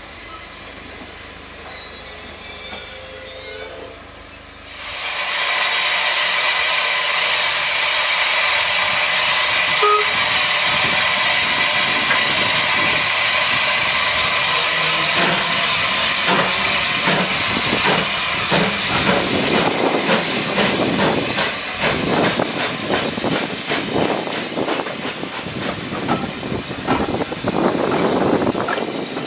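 Steam locomotive hissing loudly, starting suddenly about four seconds in, then its coaches rolling by with quickening wheel knocks as the train moves off.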